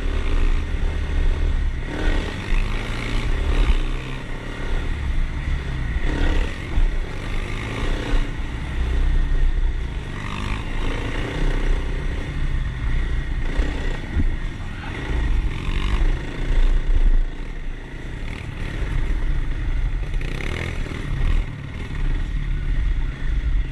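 Kawasaki KLX dirt bike's single-cylinder four-stroke engine riding a rocky trail, the throttle opening and closing every few seconds, with wind buffeting the microphone and the bike clattering over rocks.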